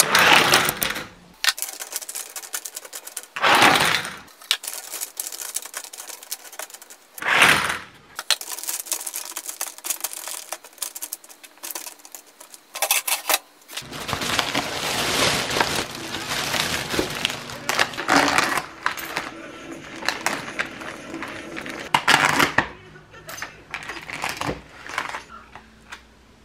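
A run of short household handling noises: clicks, clinks and clatter, with a few separate bursts early on. In the second half come denser rustling and crinkling, as of a plastic bag and takeout packaging being handled.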